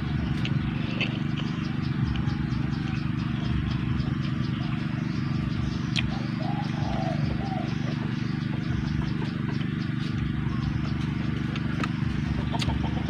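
A person chewing food with a few sharp crunches, over a steady low hum.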